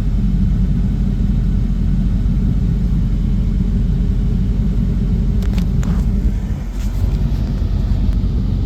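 Truck engine idling steadily, heard from inside the cab as a low rumble. A few light clicks come a little past halfway.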